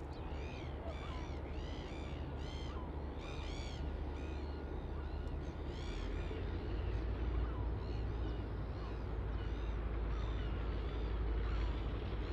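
A bird calling over and over in short arched notes, quick and close together for the first few seconds, then more spaced out. Beneath them runs a steady low rumble that grows a little louder about halfway.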